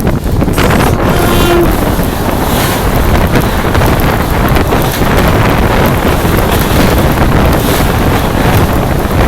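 Passenger train running at speed in heavy rain: a loud, steady rush of wind buffeting the microphone over the rumble of the coaches and the rain.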